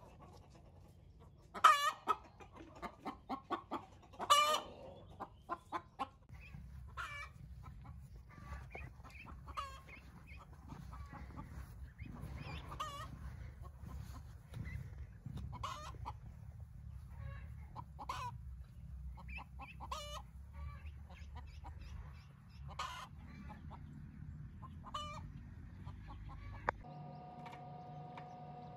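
Chickens clucking and calling. A loud call about two seconds in is followed by a quick run of clucks, and single calls recur now and then after that.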